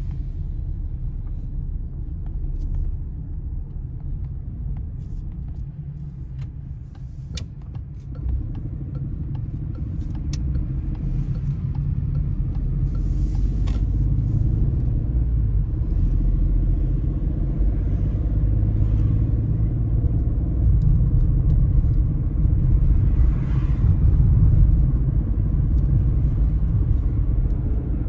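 Road noise inside a moving car's cabin: a steady low rumble of engine and tyres that grows louder from about eight seconds in as the car gathers speed on the open road. A couple of light clicks come near the middle.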